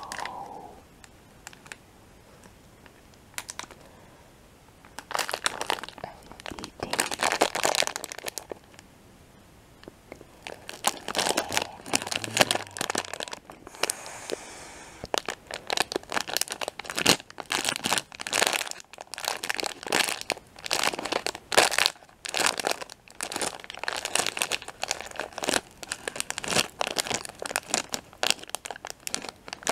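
Crinkly plastic M&M's Peanut candy bag being handled and crumpled close to the microphone. After a few quiet seconds, it makes irregular bursts of sharp crackling.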